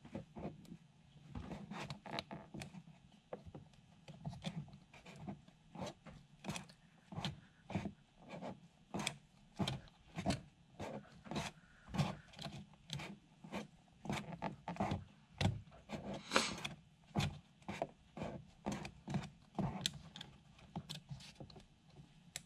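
A hand pressing and rubbing a plastic mounting bracket onto its adhesive on a windowsill over a cardboard template: a quiet, steady run of short scuffs and rubs, about two a second, with one sharper scrape about two-thirds of the way through.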